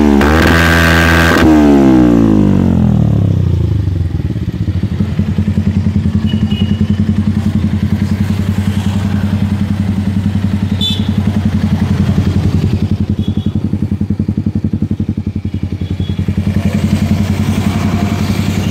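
Bajaj Pulsar's single-cylinder engine breathing through a TWPO aftermarket exhaust. The revs fall away during the first few seconds, then it idles steadily with a fast, even exhaust pulse.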